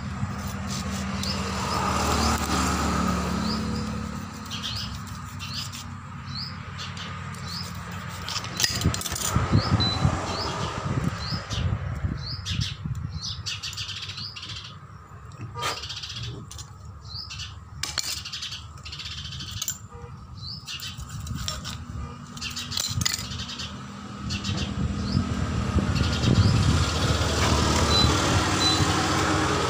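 Short rising bird chirps, about one a second, in the first half and again near the end, over scattered knocks and clinks of hand tools on the steel body of an air-hydraulic bottle jack being taken apart.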